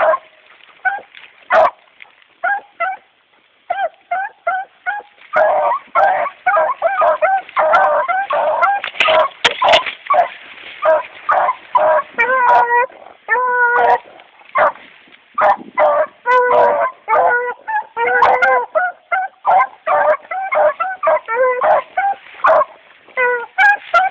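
A small pack of hounds, including young pups, baying: scattered calls at first, then a nearly continuous chorus of short, quick yelps from about five seconds in, with a few longer drawn-out notes mixed in.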